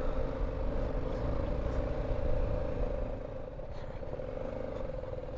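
BMW G 310 GS single-cylinder motorcycle engine running at a steady pitch while the bike is ridden slowly over a rough dirt track.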